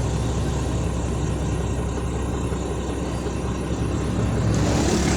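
Isuzu 6WF1 six-cylinder diesel engine idling steadily, running again after its no-start fault, with no fault codes present. A louder hiss rises about four and a half seconds in.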